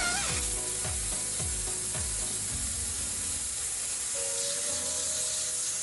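Steady hiss of compressed air at a tyre-changing machine, starting abruptly, with a few faint low tones sliding down in pitch during the first two seconds.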